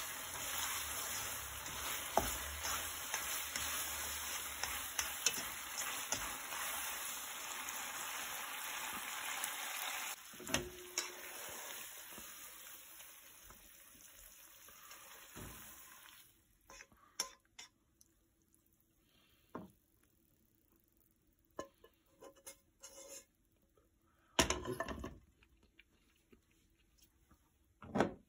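Spaghetti and cheese sizzling in a nonstick frying pan while metal tongs stir and toss it, with small clicks of the tongs against the pan. The sizzle fades away over several seconds, then come scattered light taps and a few louder knocks as the pasta is moved onto a plate with the tongs.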